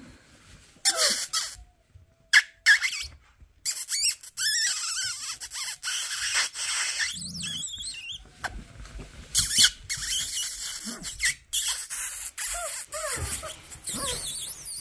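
Rustling of wood-shaving bedding as young Cane Corso puppies move about, with a few short, high, gliding squeaks scattered through it.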